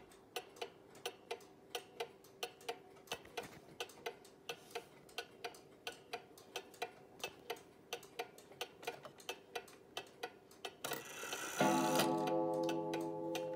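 Small pendulum shelf clock, which the owner thinks is a Junghans, ticking quickly and evenly. Near the end, after a brief rustle as the minute hand is pushed round, the clock strikes once on its coiled wire gong, which rings on and slowly fades while the ticking continues.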